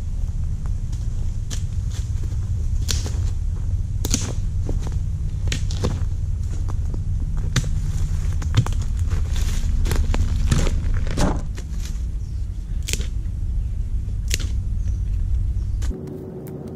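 Wind rumbling on the microphone, with irregular crunches and clicks of footsteps and a wooden walking stick on dry leaves and gravel. The wind rumble drops away suddenly near the end.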